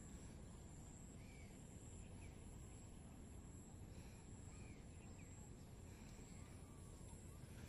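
Near silence: faint outdoor ambience with a few faint, short bird calls scattered through it.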